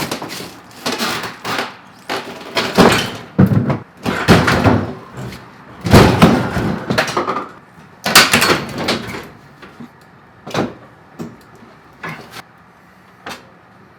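Refrigerator being manoeuvred through a doorway: a series of irregular knocks, bumps and scrapes, the loudest about 3, 6 and 8 seconds in.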